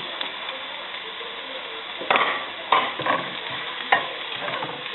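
Chopped garlic sizzling in hot oil in a pan, stirred with a few short scrapes in the second half.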